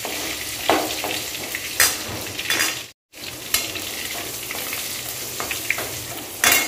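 Crushed garlic and dried red chillies sizzling in hot sesame oil in a metal kadai, with a steel ladle scraping and clinking against the pan now and then as it is stirred. The sound cuts out for a moment about three seconds in.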